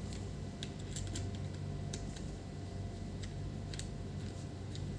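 Small precision screwdriver clicking and ticking against a screw and the metal hinge of a laptop display: about ten scattered light clicks at irregular spacing, over a steady low hum.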